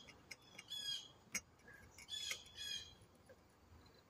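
A bird giving about three short, harsh squawking calls, with a single sharp click about a third of the way through.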